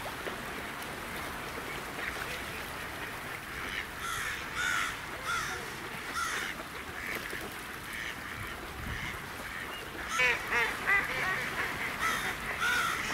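Waterfowl calling: scattered short calls, then a quick run of calls about ten seconds in, over a steady background hiss.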